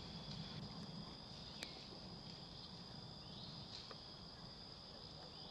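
Steady, high-pitched drone of an insect chorus, with a single faint click about a second and a half in.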